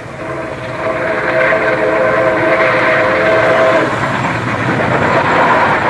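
Steam locomotive whistle held as a steady chord until about four seconds in. Under it, the rumble and clatter of a passing train grows louder from about a second in.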